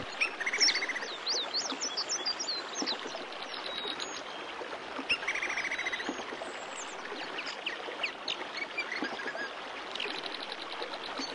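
Several birds chirping and singing over a steady rush of running water, with a fast trill about half a second in and again about five seconds in.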